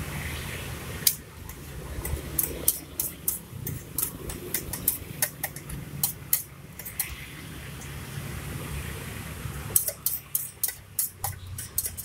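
A metal spoon knocking against a stainless-steel cup as avocado is mashed in it: a run of sharp metallic clicks, about three or four a second, that stops for a few seconds midway and then starts again, over a low steady hum.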